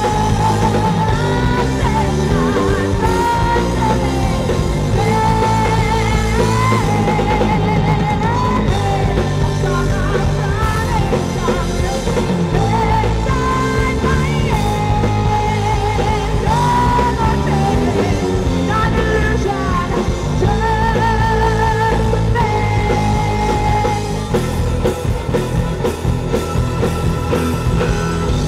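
Live indie rock band playing: a female singer holds long, wavering sung notes over electric guitar and bass guitar, until the singing stops near the end.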